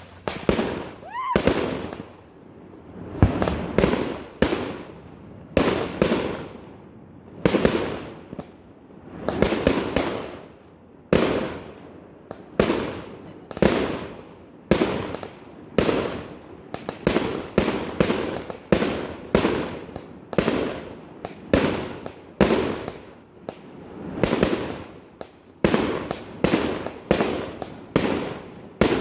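Fireworks display: a steady run of aerial shell bursts, sharp bangs each with a short fading rumble, about one to two a second and coming faster in the second half. A rising whistle is heard about a second in.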